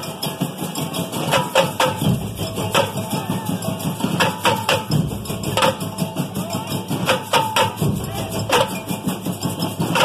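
Samba batería playing: surdo bass drums keep a steady low pulse while tamborims crack out sharp, fast strokes over the top, with hand percussion filling in between.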